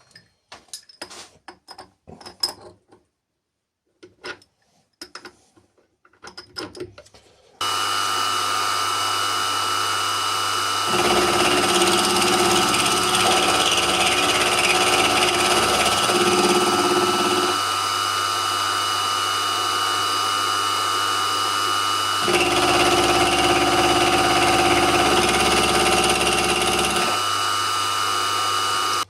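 Light clicks and knocks of handling for several seconds, then the BF25 milling machine's spindle starts about seven seconds in and runs steadily with a whine. Twice, for about five seconds each, a louder, rougher cutting sound joins in as the end mill takes passes across the ends of the part. It cuts off right at the end.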